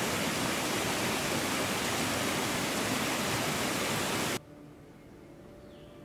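Mountain creek rushing over small rocky cascades: a loud, steady rush of water that cuts off abruptly about four seconds in, leaving only a faint background.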